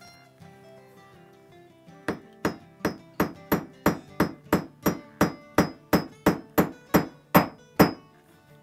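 Hammer striking a steel snap setter to set a brass line 24 snap cap in the leather strap, its rounded die curling the cap's edge over onto the snap post. A quick run of about twenty sharp metallic taps, roughly three a second, starts about two seconds in and stops near the end.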